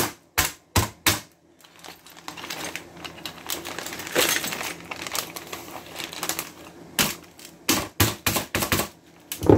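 Glass T8 LED tube being cracked with light taps of a small plastic-faced hammer inside a plastic bag: a few sharp taps at the start, a few seconds of plastic-bag rustling, then a quicker run of about eight taps near the end.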